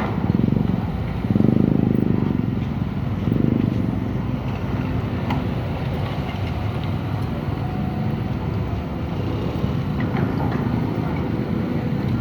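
Excavator's diesel engine running steadily, swelling three times in the first four seconds as it takes load.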